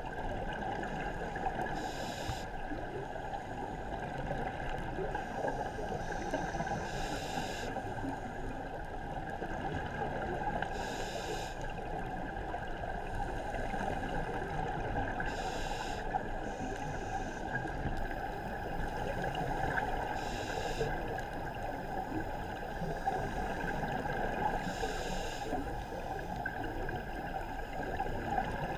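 Underwater sound through a camera housing: a steady muffled rumble, with a short hiss every four to five seconds from a scuba diver breathing through a regulator.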